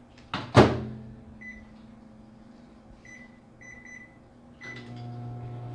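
Microwave oven door shut with a sharp clunk, then a few short keypad beeps as the time is set, and the oven starts running with a steady hum near the end.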